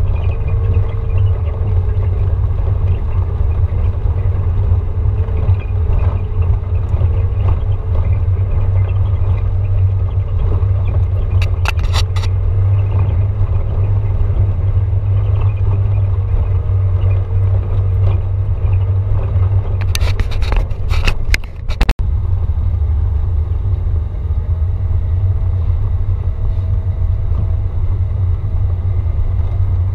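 Off-road vehicle driving up a gravel forest track, heard from inside the cabin: a steady low rumble of engine and tyres on loose stones. A few sharp clicks come near the middle and again about two-thirds of the way through, with a brief dropout just after the second group.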